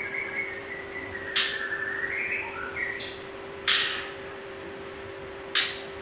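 A small cage bird held in the hand while a leg ring is fitted: a thin wavering whistle for the first few seconds, then three short harsh squawks about two seconds apart. A steady background hum runs underneath.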